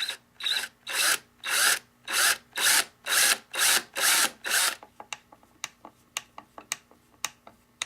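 A tool boring a pilot hole in a wooden fence: about nine rasping strokes, roughly two a second, then a run of short sharp clicks near the end.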